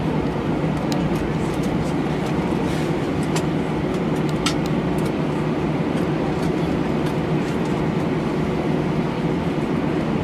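Steady cabin rumble inside an Airbus A319 rolling on the ground after landing, with a low steady hum and scattered light clicks and rattles.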